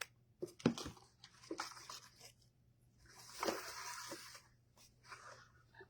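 Ribbon being handled while a bow is assembled: a few light clicks and knocks, then a longer crinkling rustle a few seconds in.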